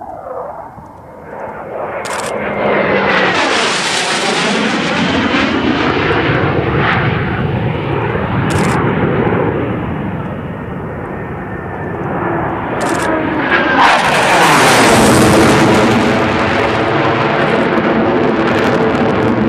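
Blue Angels F/A-18 Hornet jet engines running during low passes: a loud jet noise that swells with a sweeping, shifting pitch over the first few seconds, eases off in the middle, then builds again as a jet passes close about two-thirds of the way in and stays loud.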